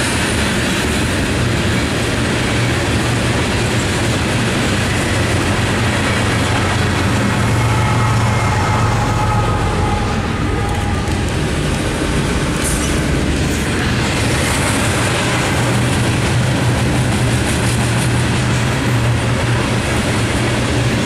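Long freight train rolling slowly past with a steady rumble of wheels on rail, a mid-train diesel locomotive (distributed power unit) going by about halfway through.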